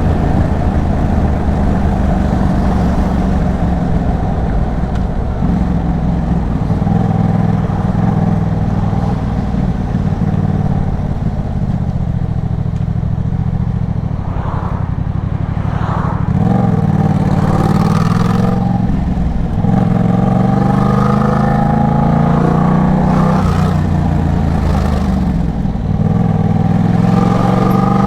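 Yamaha MT-07's parallel-twin engine running through an Arashi aftermarket exhaust while riding. Its pitch drops around the middle, then climbs several times in the second half as it accelerates through the revs.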